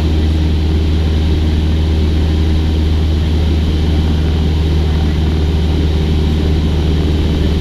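Cessna 172's piston engine and propeller running in flight: a loud, steady drone with a deep hum that holds constant throughout.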